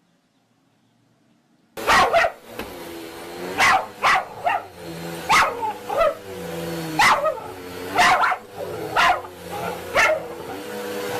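A dog barking repeatedly, about a dozen sharp barks roughly once a second, starting abruptly about two seconds in, over a steady droning hum.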